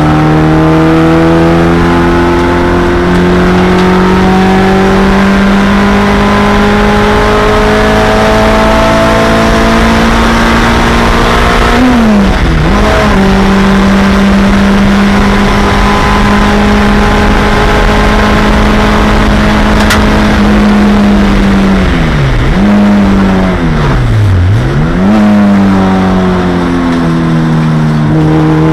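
1987 Honda CRX Si race car's four-cylinder engine, heard from inside the stripped cockpit, running hard at high revs and climbing slowly through a long pull. The revs dip briefly about twelve seconds in, then twice more near the end as the car brakes and downshifts from fifth to third, and they climb again right at the end.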